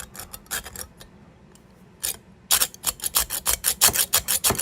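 Hacksaw blade rasping on metal in short back-and-forth strokes, scoring a mark: a few light strokes at first, then from about halfway in a quicker, steady run of about five or six strokes a second.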